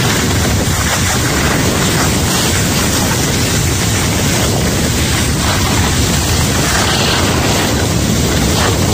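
Loud, steady rush of wind over the microphone of a camera carried by a skier going downhill, mixed with the hiss of skis sliding on groomed snow.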